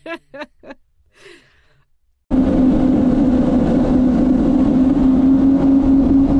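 A few short choppy pitched sounds, then near quiet. About two seconds in, a Yamaha WaveRunner 1200 jet ski's two-stroke engine cuts in abruptly, running steadily at speed with a strong steady drone.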